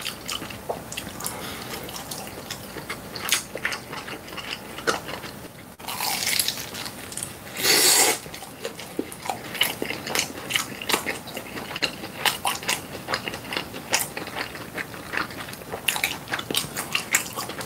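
Close-up eating sounds of a pan-fried dumpling: crisp crunching bites and wet chewing, with the loudest crunches about six and eight seconds in.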